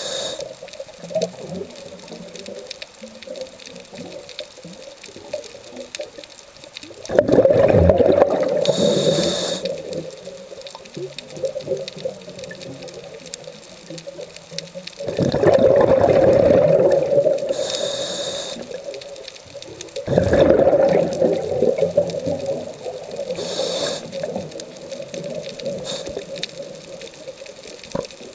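Scuba diver breathing through a regulator underwater: about four bursts of exhaled bubbles rushing and gurgling, several seconds apart, with a short high hiss during three of them and quieter water noise in between.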